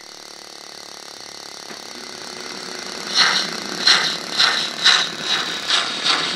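Model steam tank locomotive's sound: a steam hiss building, then exhaust chuffs starting about three seconds in, roughly two a second and quickening slightly as the train pulls away.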